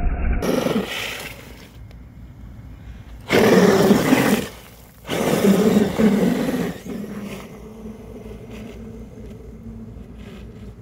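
Electric Traxxas E-Revo RC truck driving hard on wet, slushy pavement, in two loud bursts of about a second each as it accelerates close by, then running more faintly.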